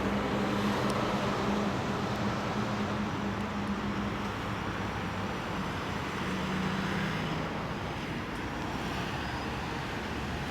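Steady road traffic on a city street, with the hum of a vehicle engine that fades out about four seconds in and comes back briefly later.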